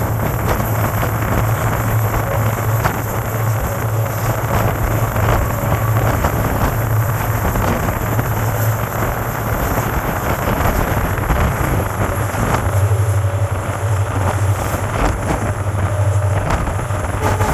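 Steady low hum of a WDP4 diesel locomotive's EMD engine pulling the train, heard from the coach behind it. It is mixed with rushing wind and the wheels clicking over rail joints.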